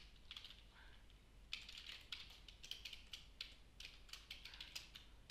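Computer keyboard typing: faint, irregular keystroke clicks, a few at first, then quicker runs from about a second and a half in.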